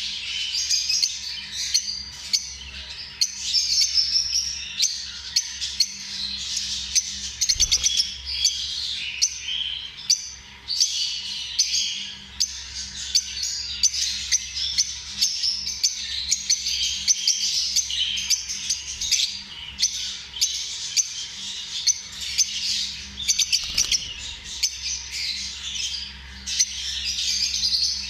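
Many lovebirds chirping at once: dense, overlapping high calls with no pause.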